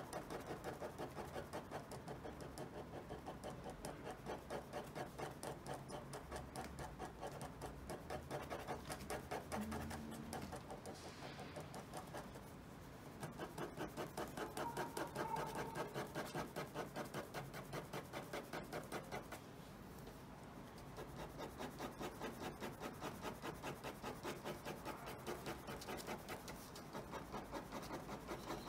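Ballpoint pen scratching on drawing paper clipped to a clipboard in quick back-and-forth hatching strokes, several a second: light shading in dense parallel lines. The strokes stop briefly twice, near the middle and about two thirds of the way through.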